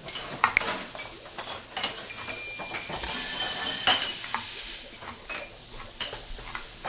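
Kitchen sound effects: a run of sharp clicks and utensil clinks, then food sizzling in a hot pan from about three seconds in for a second and a half, then more clinks.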